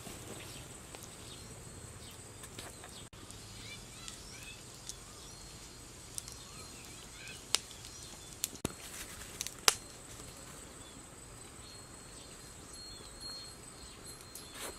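Forest ambience: a steady high-pitched insect drone with small bird chirps, broken by a few sharp cracks about a second apart near the middle.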